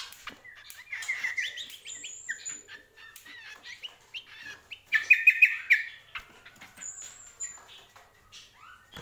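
A caged cucak kombo singing: quick runs of repeated chirping notes, the loudest about five seconds in, with short thin high whistles between them. Scattered light clicks run through the song.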